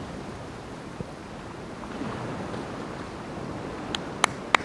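Steady wash of ocean surf and wind on the microphone, with three sharp clicks in quick succession near the end.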